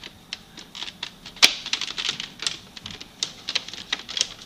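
Hard plastic parts of a Nerf Modulus blaster clicking and knocking as a dual rail barrel attachment is pushed onto its muzzle and handled. It is an irregular run of sharp clicks, the loudest about a second and a half in.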